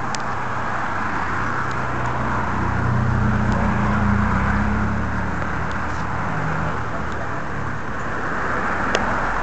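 A motor vehicle's engine running, swelling in loudness about three to four seconds in and then easing off, with a few faint clicks.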